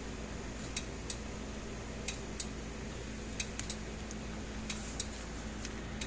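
Scattered light clicks and taps, about a dozen, of hands handling the plastic energizer case and its toggle switch while fitting a rubber switch cover, over a steady low hum.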